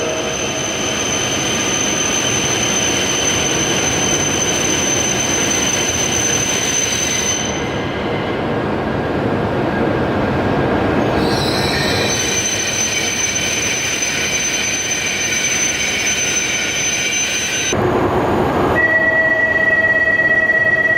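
Shinkansen train moving along the platform, a steady electric whine of several tones over the wheel-on-rail noise. About nineteen seconds in, a new steady high tone begins alongside it.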